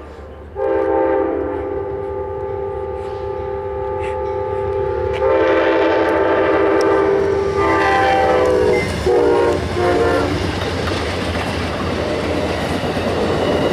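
Amtrak P42DC locomotive's multi-chime air horn played as a horn show: one long blast, then a string of shorter blasts ending about ten seconds in. The passenger train then rushes past with loud steady wheel and rail noise.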